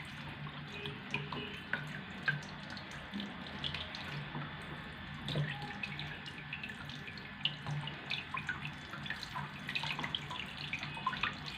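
Kitchen tap running into a sink while a whole fish is rinsed and its belly cleaned out by hand, with many small splashes and wet knocks. A faint low hum runs underneath.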